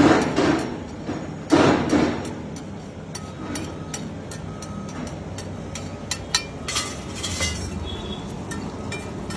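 Cooking utensils knocking and clinking at a street food griddle: two heavy knocks near the start, then lighter metallic clinks and taps.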